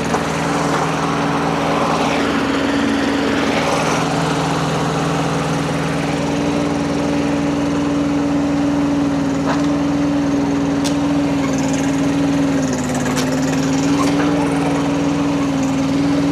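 Rippa RS06 mini skid steer's engine running steadily at high revs under load, its pitch dipping briefly near the end.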